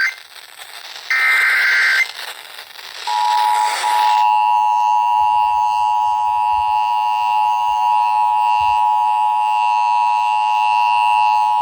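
Emergency Alert System broadcast over FM radio: a short burst of warbling digital data tones (the SAME header), then the two-tone attention signal. The attention signal starts about three seconds in and holds steady and loud.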